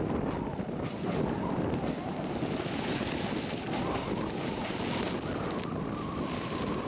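Geyser erupting, water splashing and rushing as its jet rises from the pool, with wind rumbling on the microphone.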